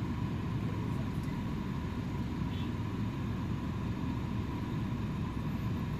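Bus engine and road noise heard from inside the bus: a steady low rumble.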